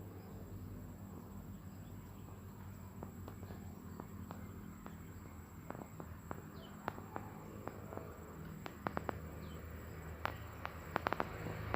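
Quiet outdoor ambience with a steady low hum and scattered sharp clicks that come more often in the second half, plus a couple of faint short chirps.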